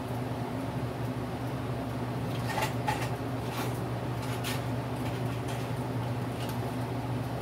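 Steady low hum of shop machinery, with a few light clicks and rattles a few seconds in as small round magnets are rummaged through and picked out.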